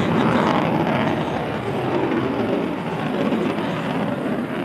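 Jet noise from the twin AL-31FP turbofan engines of a Sukhoi Su-30MKM fighter in a display pass: a loud, steady rushing sound that eases slightly over the few seconds.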